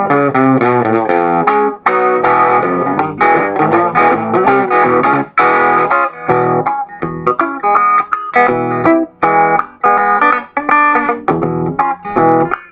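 Strat-style electric guitar playing a fast boogie-blues tune: quick runs of notes, turning to shorter, choppier phrases with brief gaps from about six seconds in.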